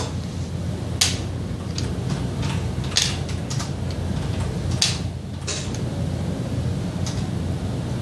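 Plastic caps of a Farnsworth-Munsell hue test being set into their plastic tray: several light clicks and taps, spaced irregularly, over a steady low hum.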